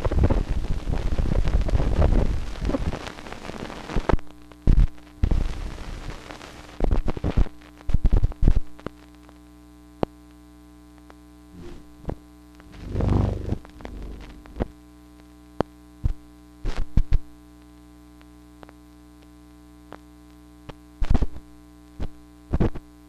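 Abstract noise soundtrack: a dense rushing noise fades out about four seconds in, leaving a steady hum broken by scattered sharp clicks and pops and one short swell of noise near the middle.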